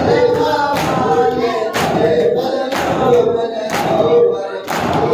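A group of men chanting a noha in unison, with rhythmic matam: sharp chest-beating slaps, about one a second, in time with the chant.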